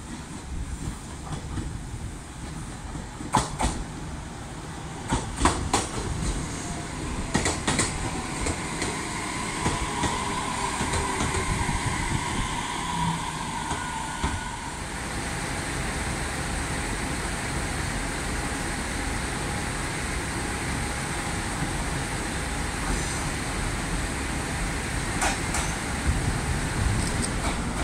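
JR Kyushu electric trains at a station: an 817 series train running in with its wheels clicking over rail joints several times in the first eight seconds, and a faint whine for a few seconds about halfway through. This gives way to a steady running noise as a 787 series express approaches near the end.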